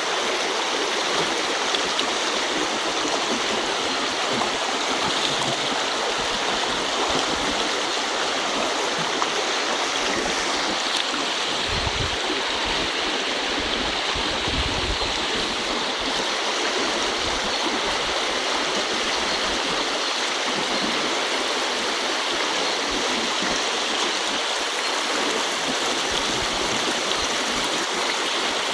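River water running steadily over stones, a continuous even rush.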